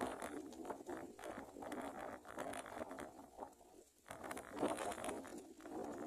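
Irregular rustling and scratching from brown prinia nestlings stirring in their nest, with many small clicks and a brief lull about four seconds in.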